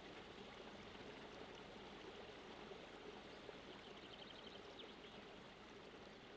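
Faint, steady sound of a stream running at a beaver dam site, the water flowing through the dammed floodplain. About four seconds in there is a short, rapid run of high ticks.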